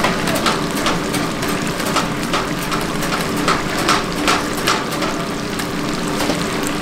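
Hot oil in a large wok sizzling and crackling as battered chicken pieces deep-fry, with many sharp pops over a steady hiss and a faint low hum underneath.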